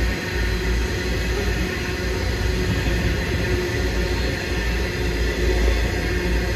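Loaded coal hopper wagons of a long freight train rolling past: steel wheels running on the rails in a steady rumble.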